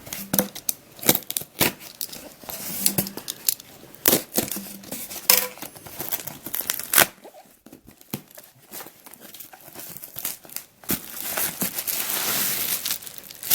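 A postal package being opened by hand: packaging crinkling and tearing in many sharp crackles, with a quieter pause midway and a longer rasping tear near the end.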